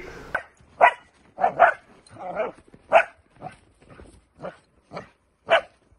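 Young Dutch Shepherd puppy barking repeatedly, about ten short barks at roughly two a second, its on-command aggression barking ('talking') while it circles beside the handler in protection training.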